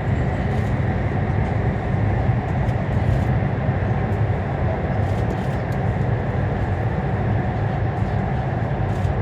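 Steady rumble and rush of a CRH1A high-speed train running at speed, heard from inside the passenger car.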